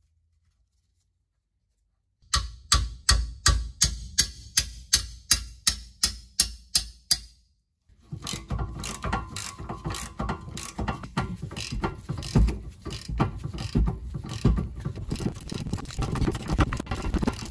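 Ratchet with a 14 mm socket clicking as it works a stiff, corroded brake calliper carrier bolt loose. After about two seconds of near silence come even, sharp clicks at about three a second, then, after a short break, faster, continuous clicking.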